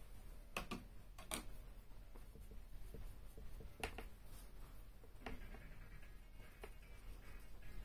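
Light clicks and taps from handling a paintbrush and painting things on a desk: a quick cluster of clicks about half a second in, a sharper single click near four seconds, another a little after five, and a few faint ticks, over a low steady room hum.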